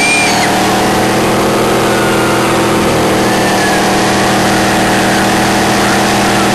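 Pickup truck's engine held steadily at high revs, its rear wheels spinning in a burnout amid thick tyre smoke, with a steady rushing noise over the engine.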